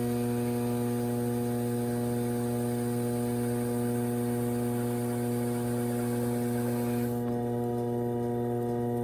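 Steady electric hum of a potter's wheel spinning fast for final trimming, with a faint hiss that drops away about seven seconds in.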